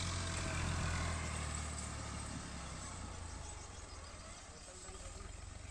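Al-Ghazi tractor's diesel engine running with a steady low hum, which fades away over the first half as it grows quieter.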